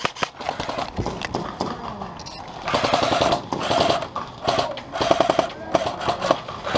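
Airsoft electric guns firing several short full-auto bursts, each a rapid, even rattle of shots. The first burst comes under a second in, and more follow from about three seconds on.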